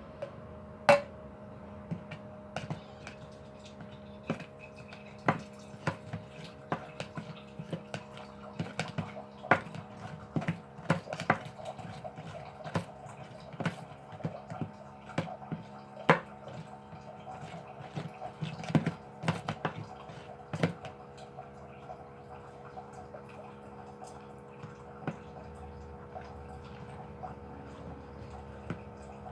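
Glue slime being stirred in a bowl as it thickens: irregular clicks and taps of the stirring utensil against the bowl, thinning out after about twenty seconds.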